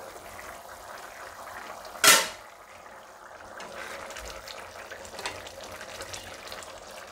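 Pigeon pea curry bubbling at a boil in an open pan, a steady wet bubbling hiss. One sharp metallic clink about two seconds in, and a spatula stirring through the curry near the end.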